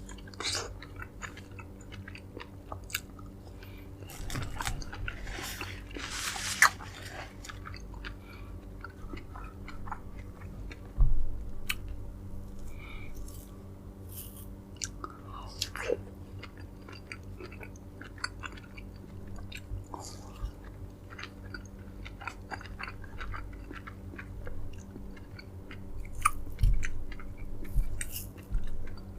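Close-miked chewing and biting of dragon fruit flesh: irregular soft wet clicks and smacks, with a couple of louder low thumps, over a faint steady hum.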